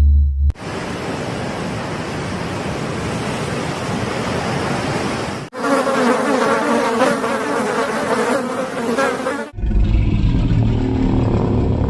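A run of sound effects: ocean water splashing for about five seconds, then cutting abruptly to a swarm of insects buzzing for about four seconds, then a low dinosaur growl beginning near the end.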